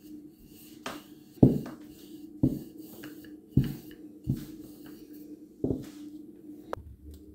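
Rolling pin working paratha dough flat on a board, knocking down against the board about five times as it is rolled, with a steady low hum underneath.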